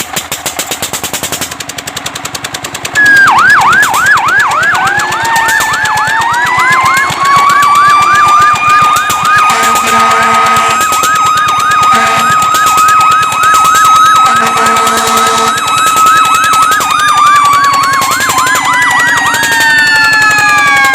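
Fire truck siren. A quieter rapid pulsing comes first. About three seconds in, the siren starts loudly with a fast yelp, layered over a slow wail that rises, holds and then falls near the end. Two short lower-pitched blasts come near the middle, about four seconds apart.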